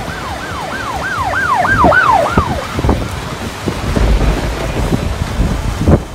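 Storm wind buffeting the microphone with a low rumble, while an electronic siren yelps in quick repeated rising-and-falling sweeps that fade out about two and a half seconds in. The wind gusts swell again after about four seconds.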